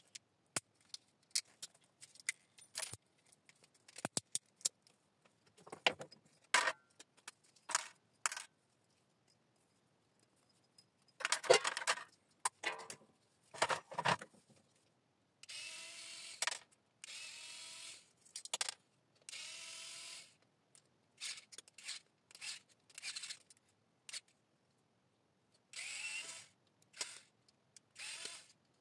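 Small metal parts of a dismantled electricity meter clicking and clattering as they are handled. About halfway through, a cordless screwdriver starts running in several short bursts of a second or so, with more clicks in between.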